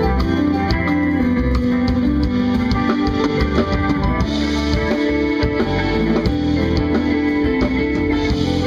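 Live instrumental band: electric guitar over a drum kit, with electric bass and keyboards.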